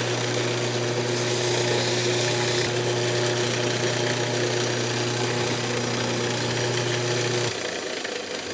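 Wood lathe running with a steady motor hum and hiss while paste wax and mineral oil are buffed onto the spinning wooden box with a paper towel. The hum cuts out about seven and a half seconds in, and the sound dies away as the lathe is switched off and coasts down.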